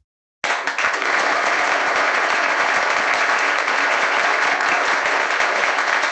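AI-generated sound effect of a crowd applauding: a dense, steady patter of many hands clapping, starting suddenly about half a second in after a brief silence.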